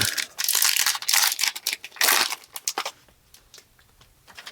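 Crinkling and tearing of a trading-card pack wrapper being ripped open by hand: three loud rustling rips in the first two and a half seconds, then a few light clicks.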